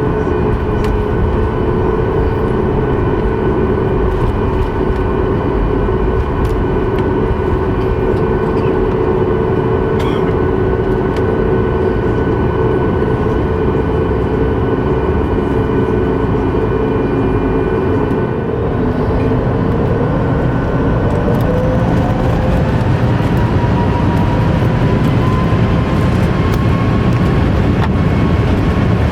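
Boeing 737 MAX 8 cabin noise from its CFM LEAP-1B engines, a steady rumble and hum with a few held tones. About twenty seconds in, a whine rises in pitch and then holds, as the engines spool up.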